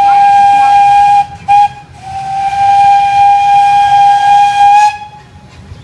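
Steam whistle of a small Grand Sierra Railway steam locomotive blowing a single steady note: a long blast that breaks off about a second in, a short toot, then a second long blast that ends near the end.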